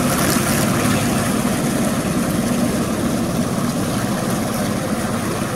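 Homemade jet ski's engine running steadily under way, growing slightly fainter as the craft pulls away.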